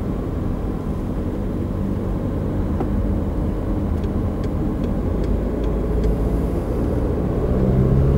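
Small car driving on a country road, heard from inside the cabin: a steady low engine and tyre drone that grows a little louder near the end.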